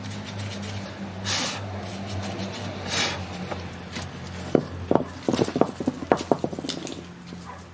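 Metal tools knocking and clinking against metal parts, a dense run of sharp clicks and knocks in the second half, over a steady low hum, with two short hisses early on.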